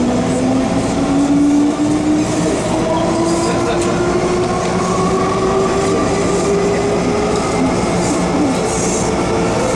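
MTR M-Train electric multiple unit accelerating away from an underground platform. The traction motors give a howling whine that rises steadily in pitch over the rumble of the wheels on the rails.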